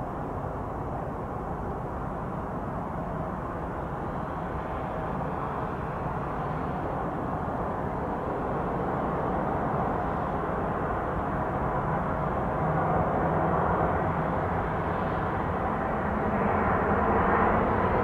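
Boeing 787-9 Dreamliner jet airliner on final approach to land. Its engines make a steady jet noise that grows gradually louder as it nears.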